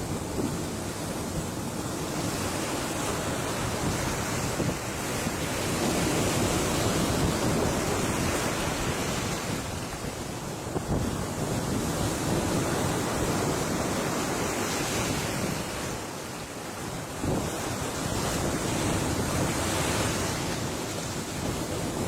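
Ocean waves breaking and washing ashore: a continuous rushing surf that swells and eases in slow surges, softening briefly about halfway through and again later.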